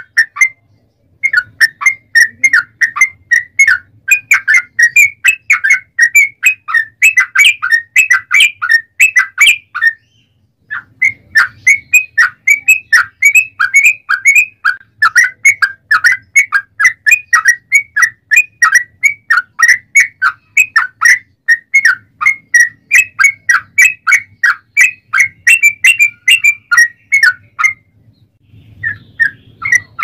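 Yellow-vented bulbul singing a long, rapid run of loud, chattering whistled notes, about four a second. The long phrases break off briefly about a second in, around ten seconds in and near the end.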